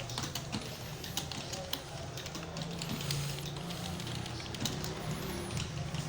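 Computer keyboard keys clicking in an irregular, unhurried rhythm as a learner types at about 26 words per minute, with a steady low hum underneath.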